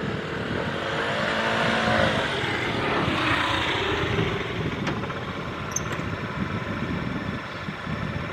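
A motor vehicle passing, its noise swelling over the first few seconds and then easing off.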